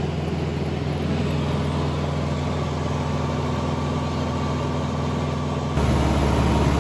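Cabin noise of a 1946 Cessna 140 in flight: its small four-cylinder engine and propeller running steadily over the wind noise, heard as raw cockpit sound without an intercom feed. Near the end the sound steps up abruptly, louder and deeper.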